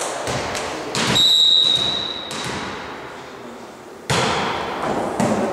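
A referee's whistle blows once about a second in, a steady blast lasting about a second. Ball thuds follow, with a sharp one just past four seconds in and another near the end.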